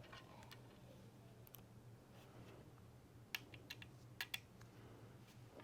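Small building magnets clicking together as pieces are snapped onto a tower. The clicks are faint and sharp, scattered mostly in the second half, over a faint steady hum.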